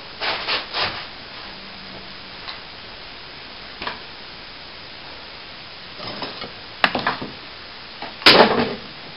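Scattered knocks and scrapes of plasterboard and hand tools being handled, with the loudest, sharp knock and scrape a little after eight seconds in.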